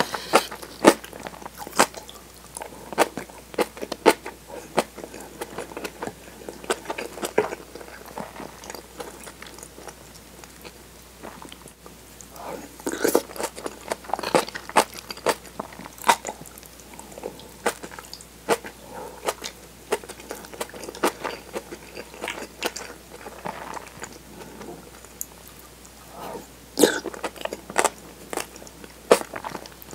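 Close-up eating sounds: chewing kimchi, tofu and rice, with soft crunches and many sharp clicks scattered throughout, busiest about halfway through and near the end.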